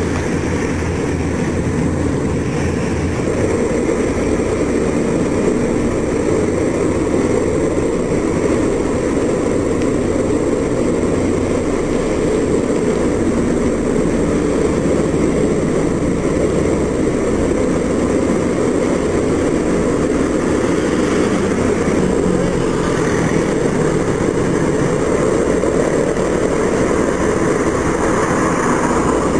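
The L-CAT landing catamaran's diesel engines running steadily and loudly as the craft drives in and runs up onto the beach.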